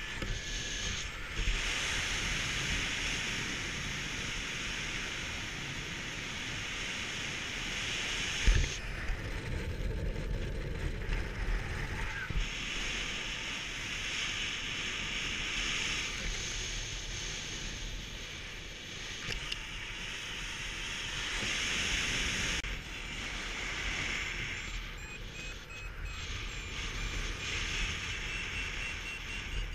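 Airflow rushing over the microphone of a paraglider pilot's camera in flight: a steady hiss that swells and eases several times, with one sharp thump about eight seconds in. Near the end a faint, rapid high beeping comes in, typical of a variometer signalling a climb in a thermal.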